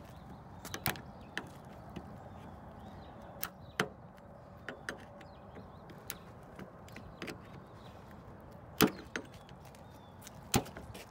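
Irregular sharp clicks and knocks of a hand tool prying and pressing at plastic spoiler-mounting clips on a car's trunk lid, as the clips are being busted loose. Two much louder cracks come near the end.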